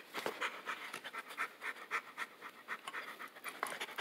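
A dog panting quickly in short, irregular breaths during rough play.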